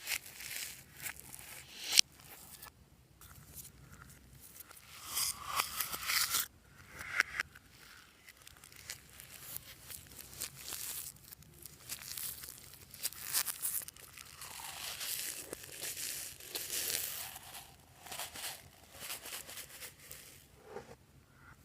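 Fluffy slime being worked by hand, squished, stretched and pulled. It gives irregular sticky crackling and tearing sounds, with a sharp pop about two seconds in.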